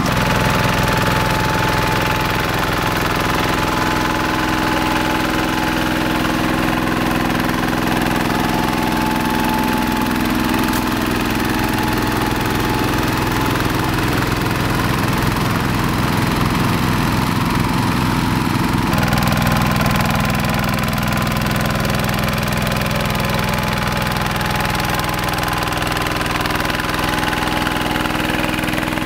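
Single-cylinder diesel engine of a two-wheeled hand tractor running steadily while it pulls a plough or tiller through a wet rice paddy. About two-thirds of the way through, the engine note shifts abruptly to a different pitch.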